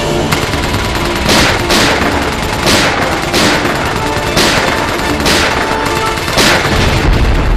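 Gunfire in a drama soundtrack: about seven sharp shots at uneven intervals, each with a short echoing tail, over tense background music. A deep low boom begins right at the end.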